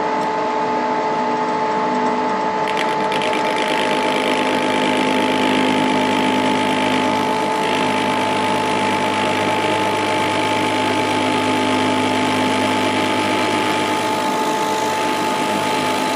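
Metal lathe running, with a hand-fed parting tool cutting into a spinning bar of leaded free-machining steel: a steady gear and motor whine under the cutting noise, which grows louder about three seconds in.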